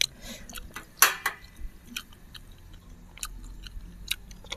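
Close-miked chewing and eating sounds from people eating spicy instant noodles with chopsticks, broken by scattered short sharp clicks, the loudest about a second in.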